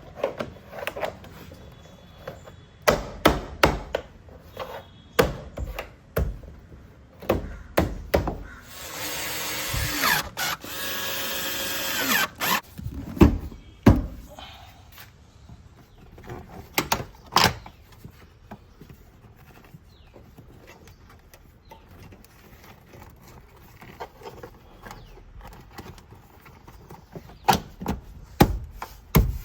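Hands handling car interior trim and cable: scattered plastic clicks, knocks and rattles, with a scraping squeal lasting about three seconds around nine seconds in, as a cable or panel is dragged through.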